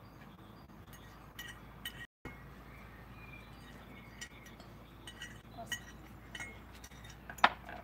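Light, scattered clinks of cutlery against dishes and glass at a table, with one sharper, louder clink near the end.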